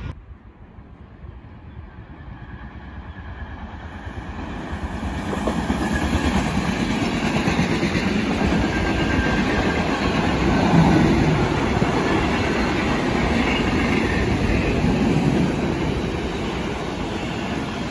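Freight train of empty flat wagons rolling through, wheels clattering over the rails. It builds from about four seconds in, is loudest around the middle, then eases slightly.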